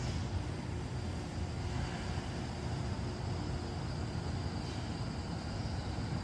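Wood stove fire burning hard with its air curtain open: a steady low rumble of the draft and gasification flames in the firebox.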